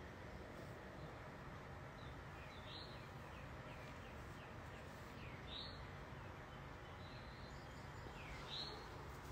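Faint bird calls: a short chirp repeated about every three seconds, with fainter chirps in between, over a steady background hiss.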